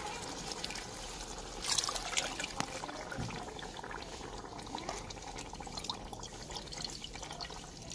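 Water poured from a clay pot into a ceramic bowl and tipped bowlful by bowlful into an aluminium pot of potato-and-pea curry, measuring the water for a pulao. There is a louder splash about two seconds in.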